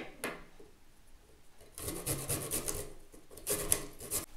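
Fresh ginger being grated on a flat metal hand grater: a quick run of back-and-forth grating strokes about two seconds in, then a second run near the end.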